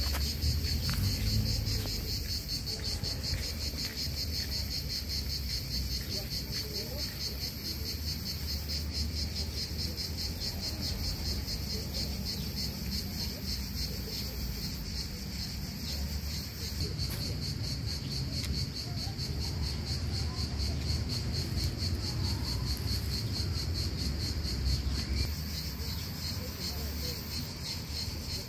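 Insects chirring steadily in a fast, pulsing high trill, with a low rumble underneath.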